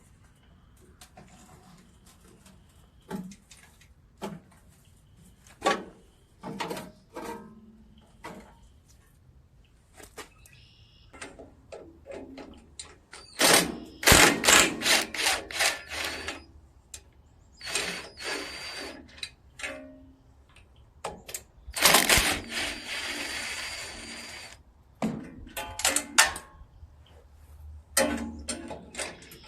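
Hand tools and metal parts clicking and knocking while a carburetor is worked off a small engine. There are two louder, noisy stretches of a couple of seconds each, about halfway through and about two-thirds of the way in.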